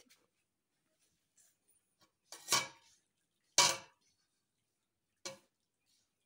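Metal utensils clattering against a metal cooking pot: two loud clanks about a second apart, then a lighter one.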